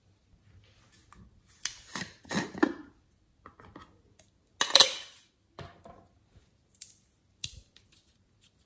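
Handling sounds: a clear jar inside a pineapple-shaped squishy sleeve is picked up and tilted, then a spoon scrapes inside it. A string of small clicks, taps and short scrapes, the loudest about halfway through.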